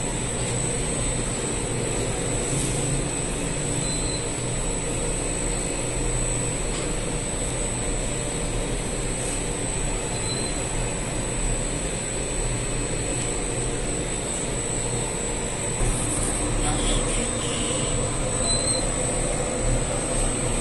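Bakery dough machine running, its roller drawing sheets of dough up and folding them into a steel hopper: a steady mechanical hum with a constant high whine.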